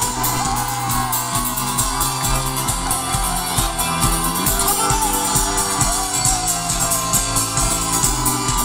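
Folk-rock band playing live through a stadium PA, with guitars, upright bass and drums, recorded from among the audience.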